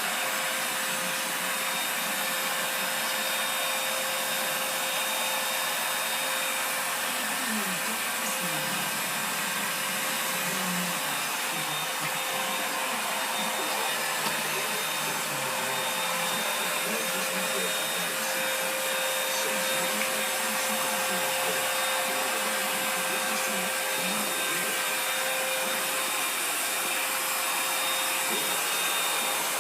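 Vacuum cleaner running steadily, a constant motor whine over the rush of air.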